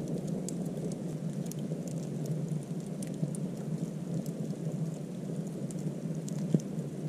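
Log fire burning over a bed of coals, the log ends flaming where they rest: a steady low rush of flame with scattered small crackles and pops, and one sharper pop near the end.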